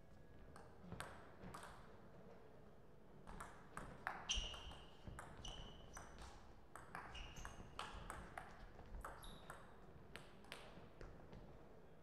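Table tennis rally: the ball striking rubber paddles and bouncing on the table in quick, sharp pings, with a couple of lone bounces about a second in and a fast back-and-forth run from about three seconds in that stops shortly before the end.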